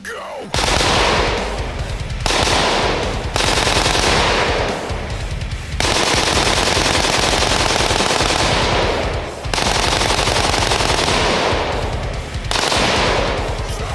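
Rifle fitted with a Slidefire bump-fire stock, fired in long strings of rapid shots that run almost together like automatic fire, with brief breaks every few seconds.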